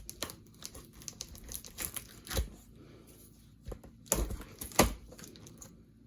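Fastening pins being worked out of a cardboard microwave box: scattered small clicks and rustling scrapes on cardboard, with a few sharper knocks about two and a half, four and five seconds in.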